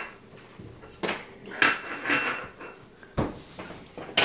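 A china plate clattering and scraping on a ceramic tile floor as a dog pushes it about with its nose, trying to flip it over: several separate clatters, one a deeper knock about three seconds in.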